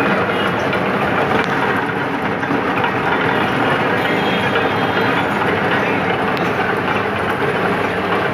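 Motorized sugarcane juice crusher running steadily, its grooved steel rollers turning.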